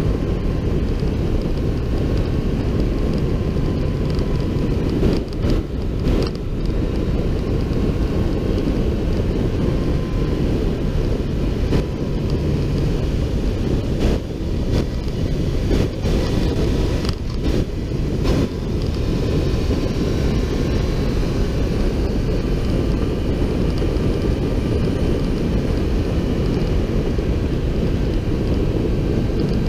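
Wind rushing over the microphone of a camera mounted on a sport motorcycle's fairing at road speed, a dense low rumble with the bike's engine humming faintly underneath. The sound dips briefly a few times.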